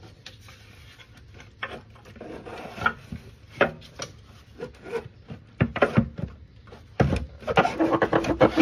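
Intake manifold of a 2011 Toyota Sienna 3.5-litre V6 knocking and scraping against the surrounding engine parts as it is wiggled free of the engine bay, with the knocks and rubbing coming thicker and louder in the last few seconds.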